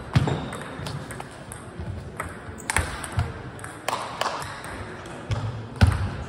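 Table tennis ball clicking off paddles and the table, sharp irregular knocks with a short ring after each in a large hall. The loudest knock comes near the end as play resumes.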